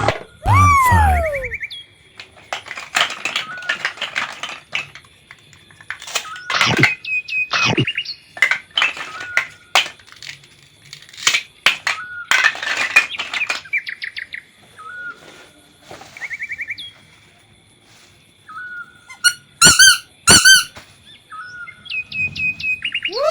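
Cartoon-style sound effects: a whistle sliding down in pitch near the start, then scattered short chirps, warbling trills and brief noisy bursts. About twenty seconds in come two quick high chirps that glide up and down.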